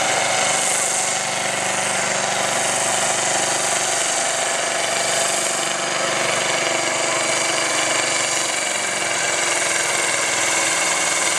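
Massey Ferguson farm tractor's diesel engine running steadily under full load as it drags a weighted pulling sled.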